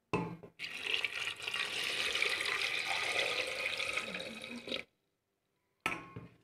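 Water poured from a pot into an aluminium pressure cooker, splashing onto dry penne and whole tomatoes; the pour runs steadily for about four seconds and stops suddenly. A brief knock comes just before the pour and another about a second after it ends.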